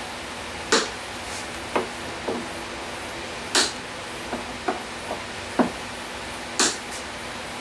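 Hand tools clicking and knocking against a plywood board on a workbench: about ten short, sharp taps at irregular intervals.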